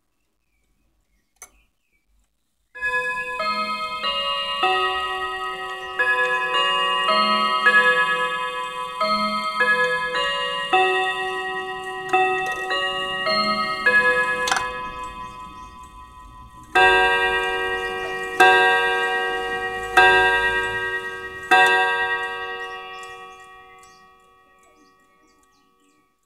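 A Linden German chiming clock's hammers strike its chime rods to play a ringing chime tune. Four slower, evenly spaced strokes follow, striking the hour, and ring out and die away. A single click comes just before the tune starts.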